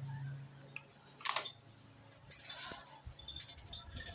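Grocery items being handled: light clinks, clicks and a short rustle, with handling rumble near the end, over a steady low hum.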